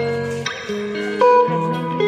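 Background music: a melody of plucked guitar notes over a steady bass line.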